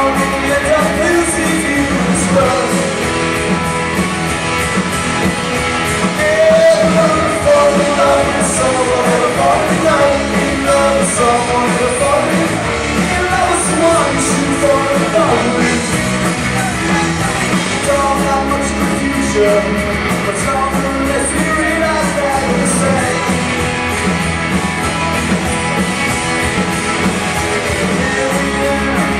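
Live rock band playing a cover song: a singer over electric guitar, bass and drums, with a steady beat.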